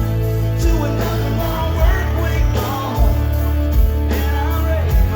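Rock music with a heavy bass line and a steady kick-drum beat, with singing or lead guitar over the top.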